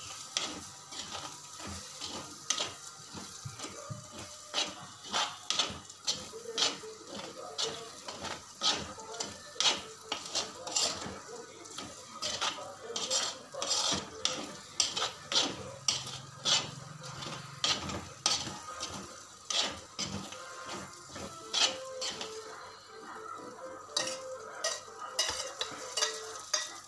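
A metal spoon stirring thick chicken masala in a kadai, scraping and knocking against the pan in irregular clicks, about one or two a second, over a low sizzle of frying.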